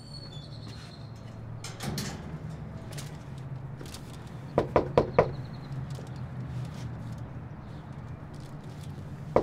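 Knocking on a door: four quick, sharp raps about halfway through, over a steady low hum, with another round of knocks starting at the very end.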